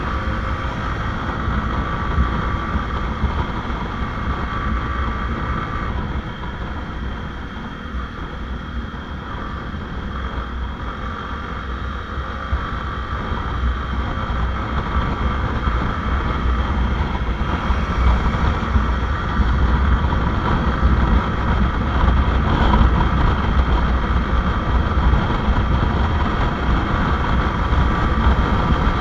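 Motorcycle engine running on the move, with steady wind rushing over the microphone. It grows louder from about halfway through.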